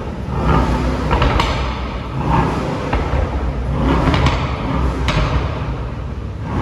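Brabus Rocket 900's 4.5-litre biturbo V8 with Brabus performance exhaust revved repeatedly while stationary, each rev swelling and dropping, with several sharp exhaust cracks and pops; the engine is not yet fully warmed.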